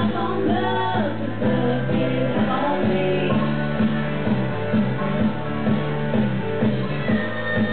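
A woman singing into a microphone over rock music with a steady beat; her voice drops out after about three seconds while the music carries on.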